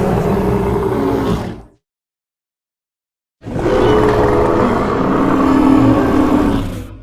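Designed Olorotitan (hadrosaur dinosaur) call sound effect: a long roar that cuts off about a second and a half in, then after a short silence a second long roar holding a steady tone that drops lower midway and fades out at the end.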